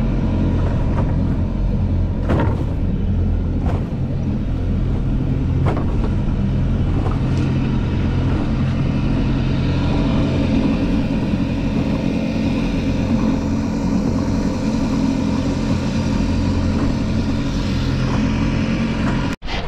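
Sailing yacht's engine running steadily as the boat motors along, over wind and water noise, with a few sharp knocks in the first few seconds. The sound cuts out briefly near the end.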